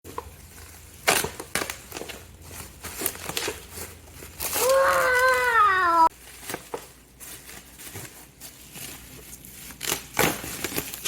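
Packaging being handled and unwrapped: plastic and paper crinkling and rustling, with scattered crackles and taps. About halfway through, a high voice gives one drawn-out call lasting about a second and a half, falling in pitch.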